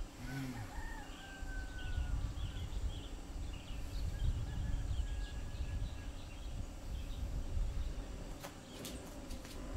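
Outdoor ambience of birds chirping and whistling over a low rumble, with a few sharp clicks near the end.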